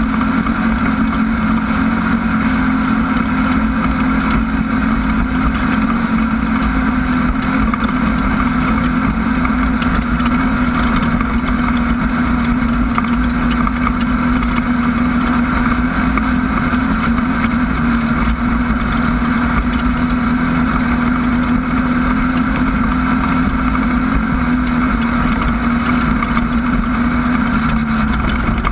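Class 1600 off-road race car's air-cooled VW 1600 cc engine running hard at a steady pitch: a loud, constant drone with rough noise over it.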